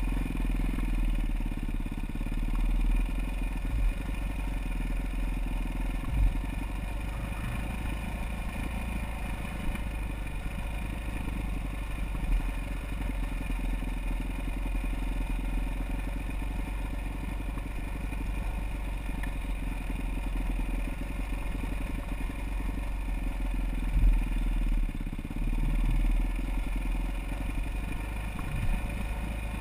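Off-road motorcycle engine running steadily under way on a trail, its pitch dipping and rising with the throttle. A few short sharp knocks come over it, the loudest about four-fifths of the way through.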